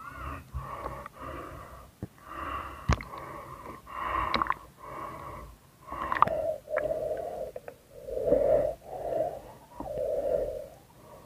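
A snorkeler's breathing through the snorkel tube, heard underwater: slow, wheezy in-and-out breaths one after another, with a few sharp clicks.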